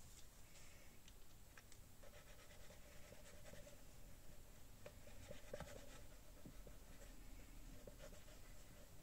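Faint light scratching and small clicks of a liquid glue bottle's nozzle dabbing glue onto a paper card.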